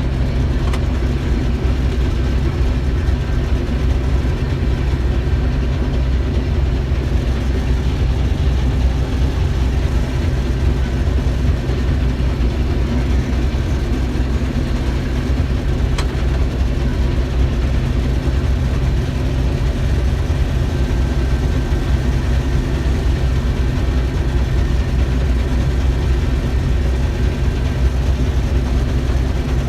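Case IH 1660 Axial-Flow combine running steadily at constant engine speed, a low, even drone of its diesel engine and threshing machinery while harvesting soybeans.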